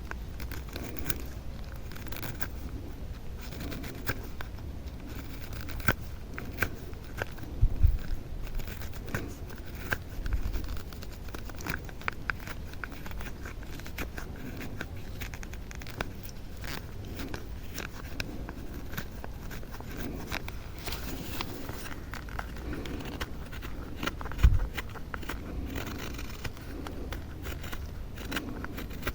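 Knife shaving and scraping wood in many short, irregular strokes. A few dull low thumps stand out, about eight and ten seconds in and again, loudest, near the end.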